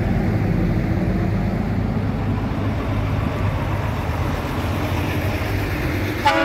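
Diesel engines of semi-trailer prime movers driving slowly past in a steady low rumble. A truck horn starts right at the end.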